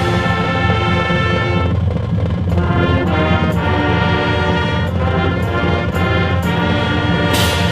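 Brass band playing: sustained full brass chords over a steady low bass, with short percussion strokes marking the beat.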